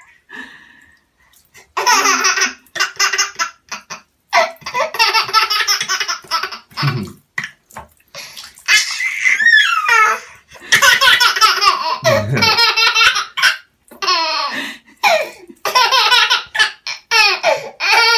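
A baby laughing hard in repeated peals with short pauses, over a thin stream of water pouring into a bathtub.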